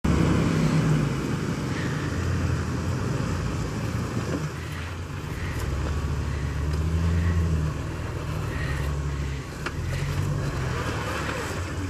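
Jeep Wrangler TJ Rubicon's 4.0-litre straight-six engine running at low revs under heavy load as the Jeep crawls up a steep boulder, its note rising and easing as the throttle is worked.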